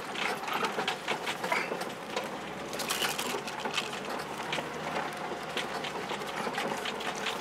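4x4 crawling over a rutted dirt track, heard from inside the cabin: the engine runs steadily under a stream of irregular rattles and knocks from the body as the wheels go over bumps.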